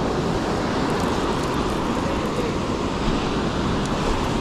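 Ocean surf washing onto the beach: a steady rush of breaking waves, with wind buffeting the microphone.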